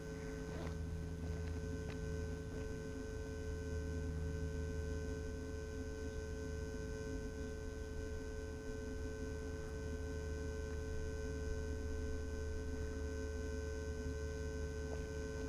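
Steady electrical hum with several fixed tones over a low rumble: interference from the grounded DJI F550 hexacopter's onboard electronics, picked up by its front-mounted camera's microphone.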